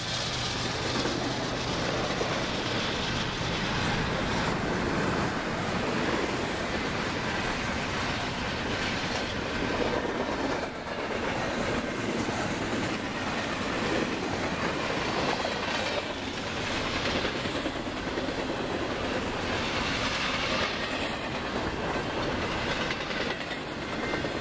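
Double-stack intermodal freight cars rolling past close by: a continuous rumble and rattle of steel wheels on the rails, with clickety-clack over the rail joints. A faint high wheel squeal rises near the end.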